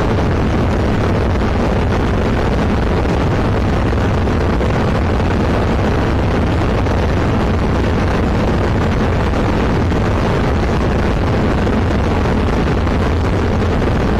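Zenith CH701 light aircraft's engine and propeller running steadily in flight, heard from inside the cockpit with rushing wind noise. The drone holds an even level with no change in pitch.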